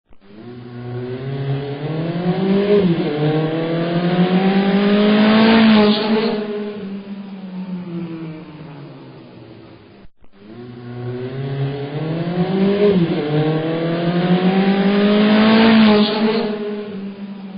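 Racing car engine accelerating, its pitch climbing with a brief drop for a gear change, loudest about six seconds in, then falling in pitch and fading as the car passes by. The same pass-by is heard again after a short break.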